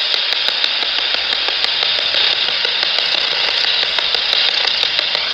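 Spirit box, a radio scanner sweeping through stations, giving out a steady loud hiss of radio static with faint ticks as it jumps between channels.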